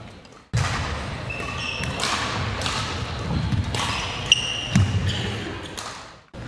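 Badminton players moving on a wooden sports-hall court: footsteps thudding and shoes squeaking in short high streaks, with a sharp racket hit on the shuttlecock a little after four seconds in. The sound cuts out briefly at the start and again just before the end.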